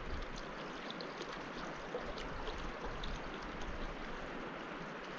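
Mountain river flowing: a steady rush of water, with a few faint ticks over it.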